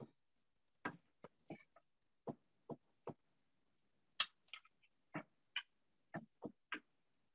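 Irregular short clicks and taps, about fifteen over several seconds, from hands pulling a rattan strip tight and wrapping it around the grip of a Japanese bow (yumi); the loudest comes a little past the middle.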